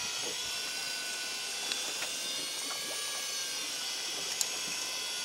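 Electric fishing reel motor whining steadily as it winds a hooked cod up from deep water under load, with a few faint clicks.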